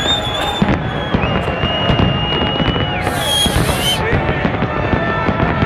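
A large fireworks display going off: a dense, continuous run of bangs and crackles, with crowd voices and a few high whistling tones over it in the first few seconds.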